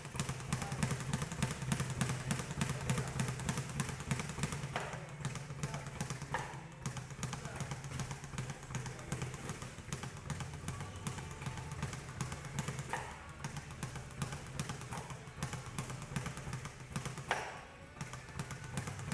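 Speed bag being punched in a fast, steady rhythm: a rapid, continuous run of thuds as the bag rebounds off its overhead platform.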